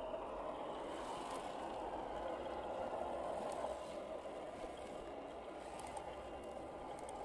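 Electric motors and geared drivetrains of 1/10-scale RC crawlers running steadily as they churn through sticky mud.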